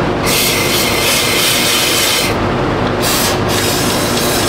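Pneumatic undercoating spray gun with an extension wand hissing as it sprays Fluid Film oil into the truck's body cavities: one spray of about two seconds, a pause, a short burst, then another spray near the end. A steady low hum runs underneath.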